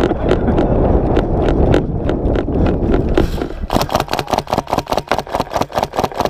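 Running footsteps and rattling gear with rumbling wind and movement noise on a helmet-mounted camera, the steps coming about four a second. About two-thirds of the way in it changes abruptly to a dense run of sharp clicks, eight to ten a second.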